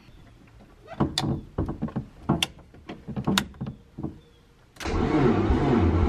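A few handling clicks and knocks, then about five seconds in the starter of a Mazda RX-7 rotary engine starts cranking steadily, pressed from an arcade-style push button, without the engine catching. The owner puts the failed start down to a battery drain somewhere in the car.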